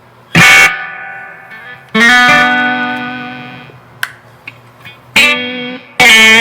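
Electric guitar played through a Marshall DSL 40C amp with a noise gate pedal engaged: bright strummed chords, some choked short and one left to ring and fade about two seconds in.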